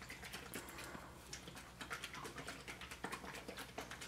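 Plastic buttermilk bottle being shaken and handled: a faint run of irregular clicks and taps.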